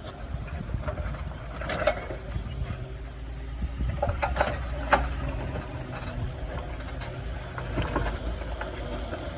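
Excavator diesel engine running steadily, with a few sharp irregular knocks from the working machine and its hydraulic breaker: one about two seconds in and a cluster about four to five seconds in.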